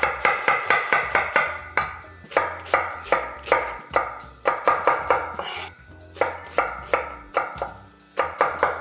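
Chef's knife dicing an onion on a wooden cutting board: a fast run of knife strikes, about four a second, broken by a few short pauses.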